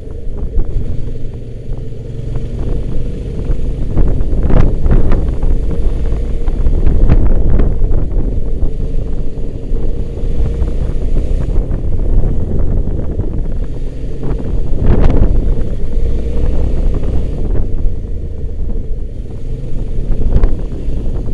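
A motorcycle riding at a steady speed, its engine running with a steady drone, with wind rumbling over the microphone and a few brief louder gusts or bumps.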